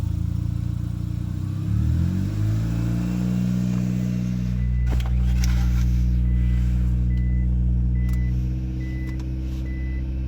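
Mitsubishi 4G93 GDI 1.8-litre inline-four running with its CVT put into reverse: the revs rise about a second and a half in and then settle to a steady run, with a sharp click near the middle. From about seven seconds in, the reverse-gear warning buzzer beeps about once every 0.7 s.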